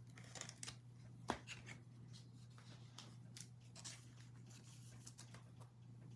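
Faint rustling and soft clicking of baseball trading cards and their packaging being handled, with one sharper tap about a second in, over a faint steady low hum.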